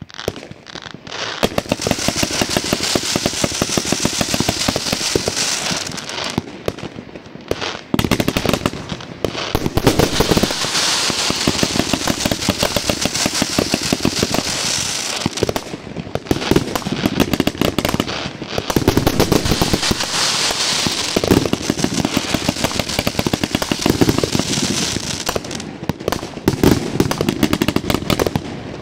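A 121-shot 1.3G combination fireworks cake firing in rapid succession: a fast stream of sharp shots with dense crackling from its crackling mines and crackling palm shells. Short lulls come between volleys.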